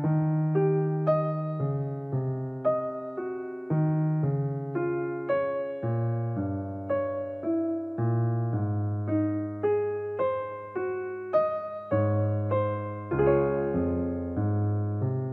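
Background piano music: a melody of single notes, about two a second, over held bass notes.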